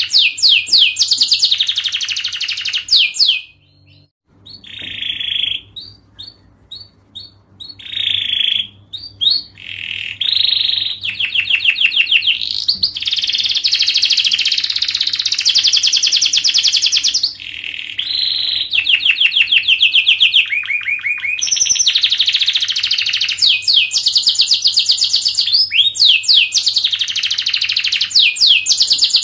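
Domestic canary singing a long, fast song of tightly packed trills and chirps, which breaks into short scattered notes for a few seconds early on before the rapid trilling resumes. A faint steady low hum sits underneath.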